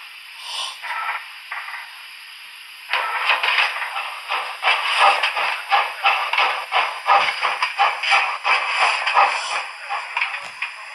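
Sound decoder of an Arnold TT-scale class 58 model steam locomotive playing steam exhaust chuffs through its small loudspeaker as the model runs. The first few seconds are quieter; about three seconds in, a steady run of repeated chuffs starts and goes on.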